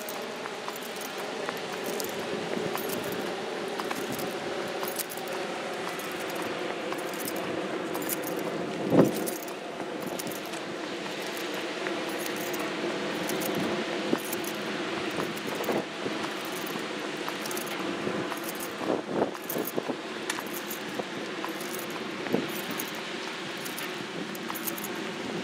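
Walking footsteps with a light metallic jingle on each step, about two a second, over a steady hum. One sharp knock about nine seconds in.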